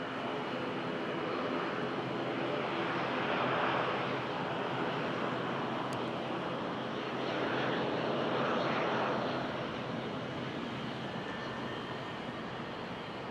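Boeing 737 BBJ's twin CFM56-7 turbofan engines running as the airliner passes, a steady rushing noise that swells about four seconds in and again around eight seconds in.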